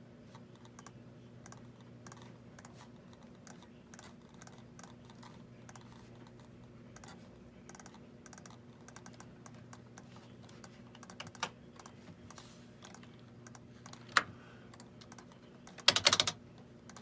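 Computer keyboard typing and mouse clicks, irregular short clicks throughout, over a steady low electrical hum. A short, louder burst of sound comes about a second before the end.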